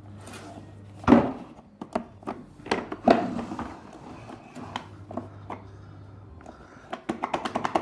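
Scattered knocks and clicks of handling, with a quick run of clicks near the end over a faint low hum.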